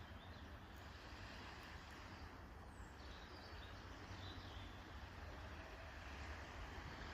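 Faint Baltic seaside ambience: a steady wash of noise with a low rumble underneath, and a few faint bird chirps.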